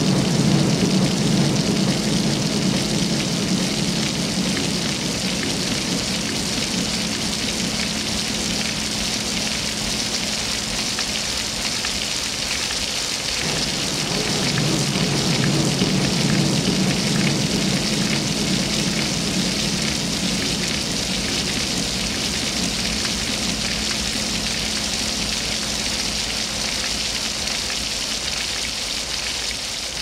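Water from a small decorative waterfall pouring and splashing steadily into its rock pool, with a low rumble underneath that cuts out briefly midway.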